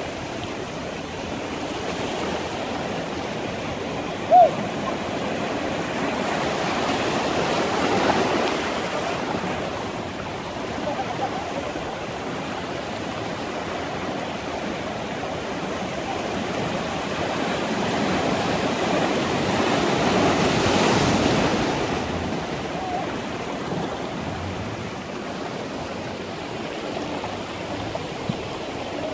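Ocean surf breaking and washing over rocks, swelling louder twice. There is a brief, loud squeak about four seconds in.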